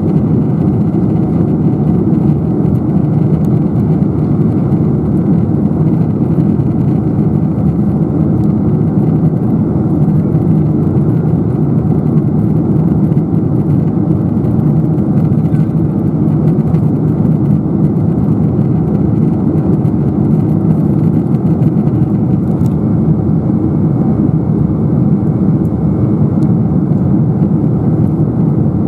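Boeing 747-400's General Electric CF6-80C2 engines and the rush of air past the fuselage, heard from a window seat beside the wing. It is a loud, deep, even rumble that holds steady in flight, with no change.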